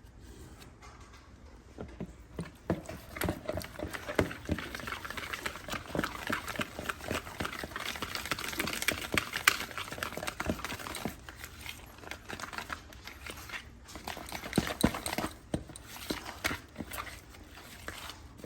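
A dog eating a treat: quick, irregular wet smacking, licking and chewing clicks that come in two spells, with a short lull between them.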